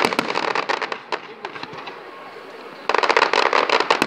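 Fireworks crackling: dense, rapid pops from bursting shells, thinning out in the middle and flaring up again in a second thick flurry a little under three seconds in.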